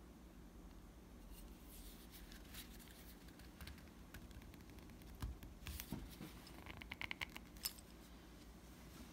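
Faint scattered clicks and scrapes of a small tool working at the cover of a vintage Airguide marine speedometer to free it. There is a quick run of ticks about seven seconds in.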